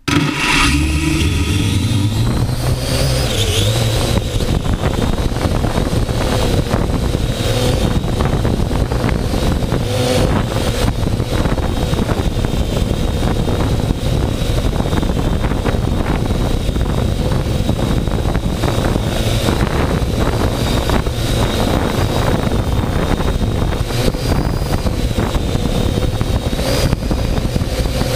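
A drone's propellers and motors spin up abruptly and then run steadily, heard from close below by a GoPro camera slung under the drone. The whine holds a steady pitch over a heavy low rumble.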